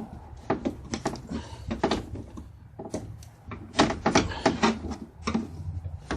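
Irregular sharp clicks and clacks of hard plastic and metal parts being handled as a van's door trim is taken apart.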